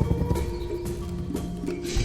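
Online slot machine game audio: looping background music with held tones, and a few sharp clicks from the game's spin and reel sound effects, the strongest near the end.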